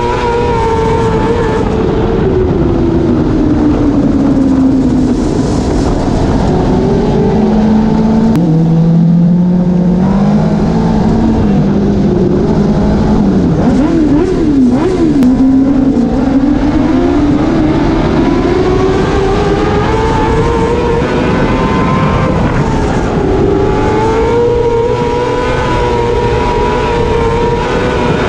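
Winged sprint car's V8 engine heard onboard, running hard at high revs. Its pitch falls to a low note for a few seconds as the car slows, wavers up and down with quick throttle blips, then climbs back to a high steady note as it gets back up to speed.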